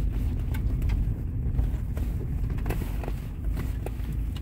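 Car cabin rumble while driving slowly over a bumpy rural road, with a few light rattles and knocks as the car shakes.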